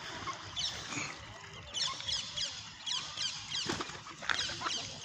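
Baby birds peeping: many short, high chirps that slide down in pitch, several a second, coming thicker in the second half.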